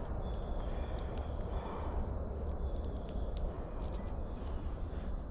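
Outdoor background noise: a low rumble under a steady high-pitched hum, with a few faint clicks and rustles.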